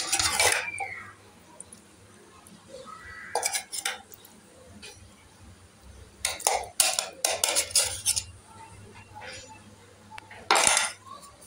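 Utensils clinking and scraping against an aluminium cooking pot while biryani layers of meat and rice are laid in. The sound comes in short clusters of knocks and scrapes, about four times, with quiet gaps between.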